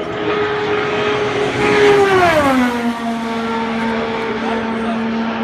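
An IndyCar at full qualifying speed passes by, its Honda 2.2-litre twin-turbo V6 held at a high steady pitch. About two seconds in the pitch drops sharply as the car goes past, then holds lower as it pulls away.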